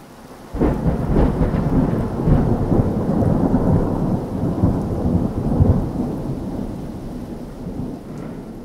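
Thunderstorm: thunder breaks suddenly about half a second in and rumbles on with rain, slowly dying away.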